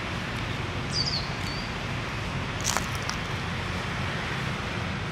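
Steady outdoor background noise of distant road traffic, with a short high bird chirp about a second in and a single sharp click about halfway through.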